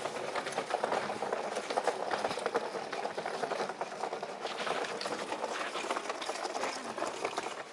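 Wheeled suitcase being pulled along the ground, its wheels making a rapid, steady rattle.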